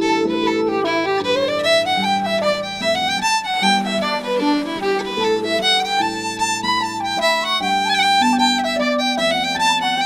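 Irish folk tune on fiddle, quick runs of notes climbing and falling, over held lower notes from a concert harp.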